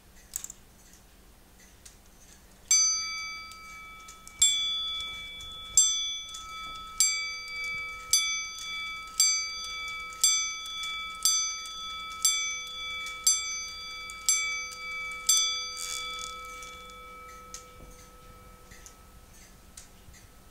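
A K'nex striking clock's striking train sounds the hour on a bell: twelve ringing strokes, the first few slightly further apart, then about one a second. The last stroke rings out and fades. The clock's escapement ticks faintly underneath.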